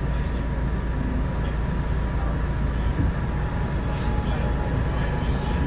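Inside an R211A subway car running between stations: a steady low rumble of the wheels on the track, with a thin steady whine.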